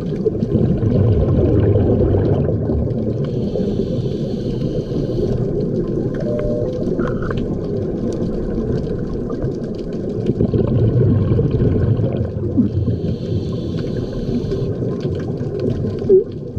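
Underwater scuba sound: a diver's regulator hissing on each inhale and exhaled bubbles rumbling and gurgling, about two slow breaths.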